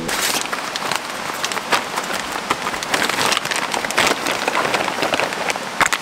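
Packaging crinkling and rustling in the hands, many small irregular crackles, over the steady rush of a stream.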